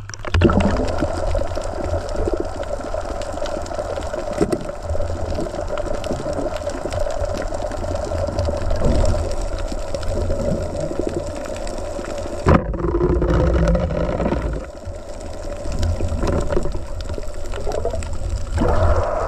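Muffled underwater sound picked up by a submerged camera: a steady hum over a low rumble of water, with one sharp click about two-thirds of the way through.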